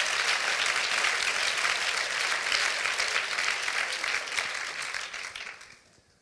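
Church congregation applauding, a dense run of clapping that dies away near the end.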